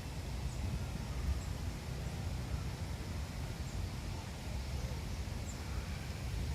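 Gusty wind buffeting the microphone: an uneven low rumble that rises and falls, with a few faint short high chirps, likely birds.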